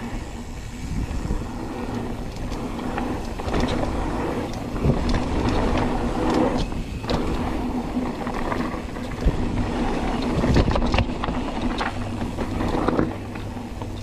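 Mountain bike riding down rough dirt singletrack: a continuous rumble of tyres over dirt and rocks, broken by frequent sharp knocks and rattles from the bike.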